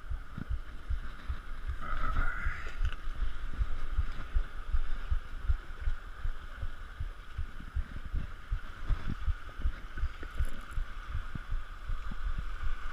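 Wind buffeting the camera microphone in irregular low thumps, over a steady hiss.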